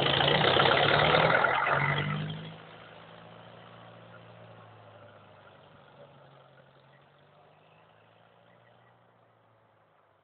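An engine running, loud for the first two and a half seconds, then dropping sharply and fading away, its pitch sinking slightly as it fades.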